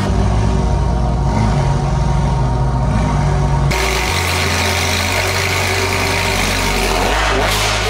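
Sports car engine running. About four seconds in it cuts abruptly to a steadier, lower engine note with much more wind and road noise.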